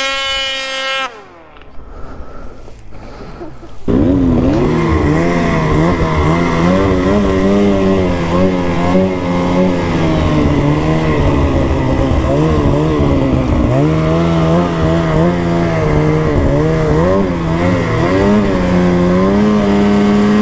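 Snowmobile engine of a 2024 Ski-Doo Freeride. It revs briefly, goes quieter for a few seconds, then about four seconds in suddenly opens up and runs hard under load while riding through snow, its pitch rising and falling with the throttle.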